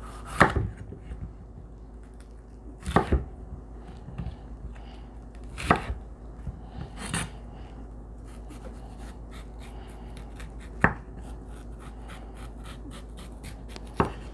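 Chef's knife cutting a red bell pepper on a bamboo cutting board: about six sharp knocks of the blade meeting the board, a second or more apart, with a run of light quick ticks in the second half as the pepper is trimmed.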